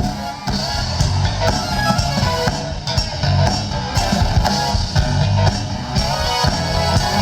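Live funk band playing an instrumental groove, with a steady beat on drums and bass under guitar.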